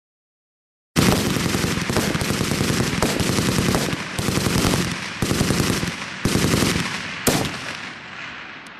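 Rapid gunfire starting about a second in: about three seconds unbroken, then three shorter bursts with brief gaps between them. A single sharp shot follows about seven seconds in, and the firing then dies away.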